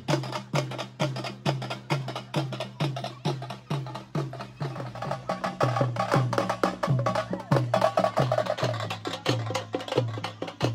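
Drumming in a steady rhythm: a deep drum stroke a little over twice a second, with fast, sharp, clicking strokes over it.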